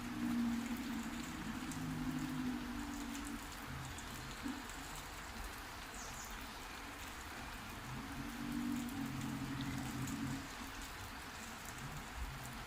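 Steady rain falling. A low steady hum comes in during the first few seconds and again about eight seconds in.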